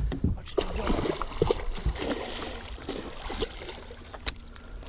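Water splashing as a hooked musky thrashes at the side of the boat, with a few short knocks.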